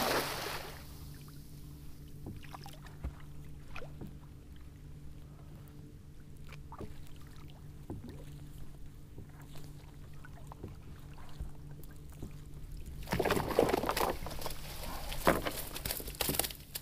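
A nylon cast net splashes onto the water at the start. After a long quiet stretch with a few small ticks and drips, the net is hauled from about 13 seconds in, with water pouring and splashing off the mesh.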